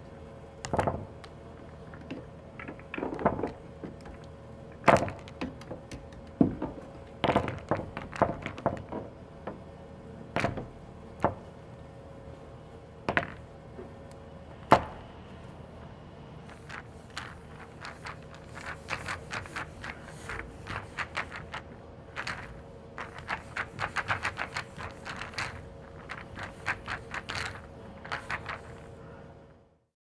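Pool balls being gathered and set up for a new game: balls rolling and clacking against one another. The knocks come one at a time over the first half, then in quick runs of clicks over the second half, with a faint steady hum underneath.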